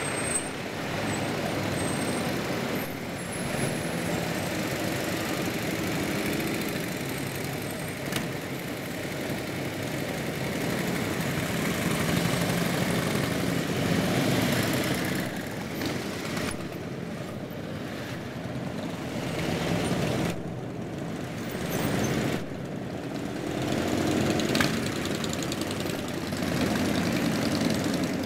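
Motorcycles riding slowly past one after another, their engines running steadily. The sound swells and fades several times as each bike goes by.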